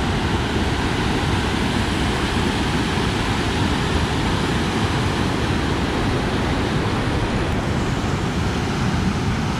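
Water rushing over a river weir, a steady, loud roar.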